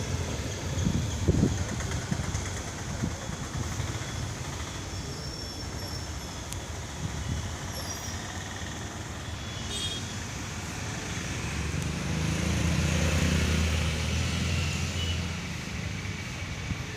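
Road traffic: a steady low rumble, with a motor vehicle's engine growing louder about twelve seconds in as it passes, then fading. A few faint short high notes and some low thumps near the start sit over it.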